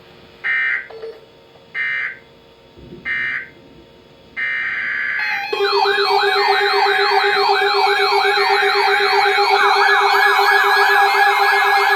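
Emergency Alert System data tones: three short, harsh digital bursts about a second apart, the end-of-message signal, then a longer burst. About halfway through, a loud siren-like attention tone starts, wailing up and down over a steady lower tone, announcing the next warning.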